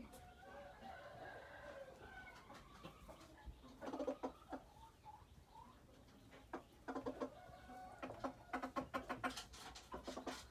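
Laos junglefowl clucking: a drawn-out call over the first two seconds, then clusters of short clucks, ending in a quick run of clucks.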